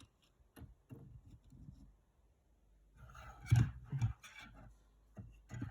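Small plastic miniatures being handled and set down on a table. There are light clicks and knocks, with the loudest cluster about three and a half seconds in.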